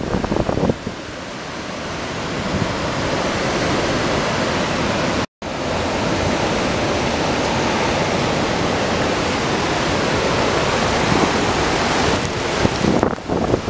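Hurricane-force wind and driving rain making a steady, loud rushing noise, with gusts buffeting the microphone at the start and again near the end. The sound breaks off for a split second about five seconds in.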